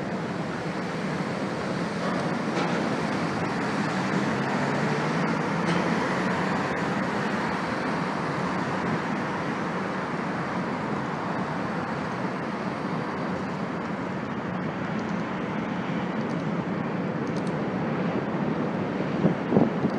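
Freight train cars rolling past on an elevated railroad bridge: a steady rumble and rattle of wheels on the rails. There are a few louder knocks near the end.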